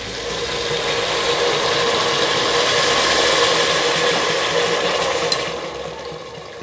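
Water poured from a glass bottle into a pressure cooker of hot chickpea masala, a steady splashing pour that tails off near the end.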